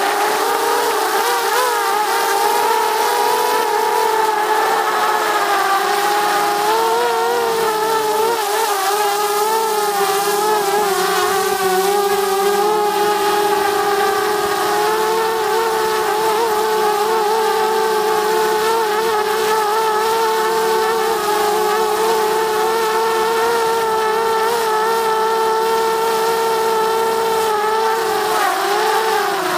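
DJI Mavic Mini quadcopter's motors and propellers whining steadily in flight, heard close-up from a camera mounted on top of the drone. The pitch wavers slightly and dips briefly near the end.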